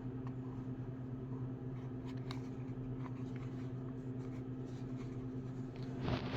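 Steady low electrical-sounding hum with a few faint clicks, then louder rustling and knocking near the end as the tool set is handled.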